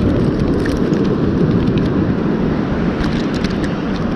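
Strong wind buffeting the camera's microphone: a steady, loud, low rumble of wind noise.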